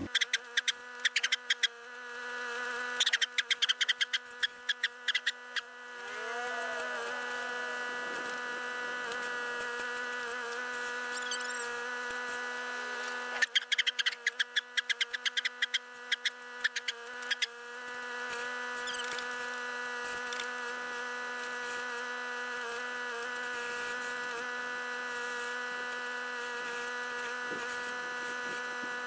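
John Deere 1025R compact tractor working a 260B backhoe: a steady buzzing hum, broken three times by runs of rapid clicks and knocks. Each time the hum dips, then swells back up.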